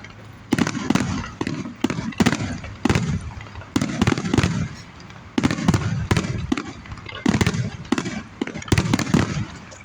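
Aerial fireworks exploding in a steady string of sharp bangs, about two or three a second, each followed by a low rumbling echo.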